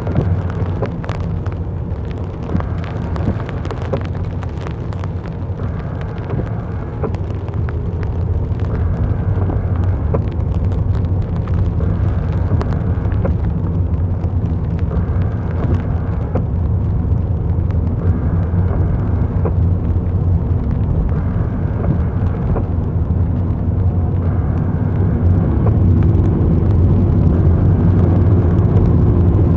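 Car driving through city streets: steady low road and engine rumble, growing a little louder near the end, with a soft sound that recurs about every three seconds.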